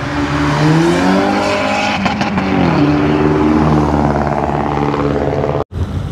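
A car engine accelerating hard, its pitch climbing, dropping at a gearshift about two seconds in, then climbing again. The sound breaks off for an instant near the end.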